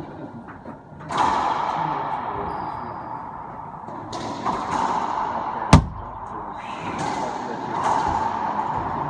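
Racquetball rally: a string of sharp smacks as the ball is hit by racquets and slams off the court walls, each one echoing in the enclosed court. The loudest, sharpest smack comes near six seconds in.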